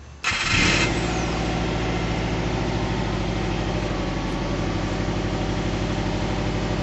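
The 2004 Subaru Forester XT's turbocharged 2.5-litre flat-four idling through its stock exhaust. It cuts in suddenly with a brief hiss in the first half-second, then settles into a steady idle with an even pulse.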